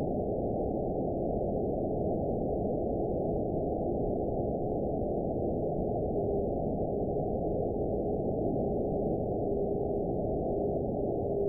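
Radio receiver hiss from an RTL-SDR in sideband mode, cut off above about 1 kHz, with a thin steady whistle near 400 Hz: the beat note of the distant TV video carrier on 49.75 MHz. The whistle is faint at first and grows stronger in places in the second half, the way meteor-scatter reflections of the carrier come and go.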